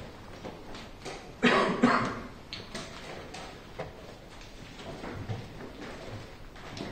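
Blitz chess being played: wooden pieces set down on a roll-up board and a digital chess clock's buttons pressed, giving a run of short taps and clicks over a murmuring hall, with one louder, rougher burst about a second and a half in.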